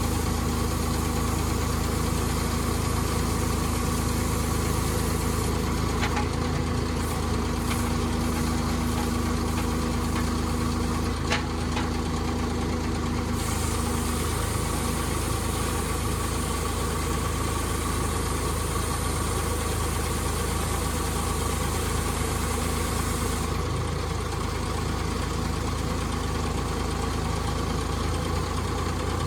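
R5 pile driver's engine idling steadily, with a couple of short clicks about six and eleven seconds in.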